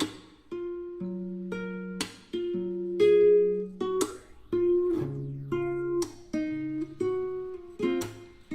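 Background music: strummed acoustic guitar playing a chord pattern, a new strum about every half second to second.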